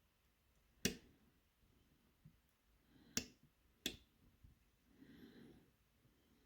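Three sharp metallic clicks of a hook pick working the pins of a six-pin pin-tumbler challenge lock under tension, about a second in and then two close together near the middle.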